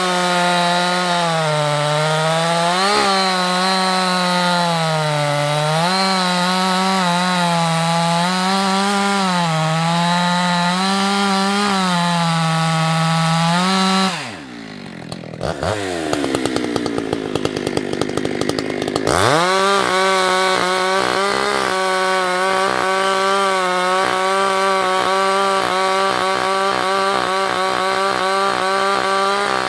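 Husqvarna 365 two-stroke chainsaw at full throttle cutting firewood, its pitch dipping and recovering as the chain bites. About halfway through, the throttle is let off and the saw idles roughly for a few seconds, then it is opened up again and held at a steady high pitch.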